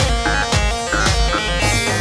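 Instrumental Kurdish folk dance music: a drum beat about twice a second under a held tone and a melody line, with no singing.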